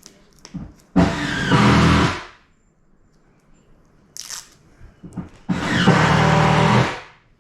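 A power tool runs in two short bursts of about a second each, with a short hiss and a few faint knocks between them.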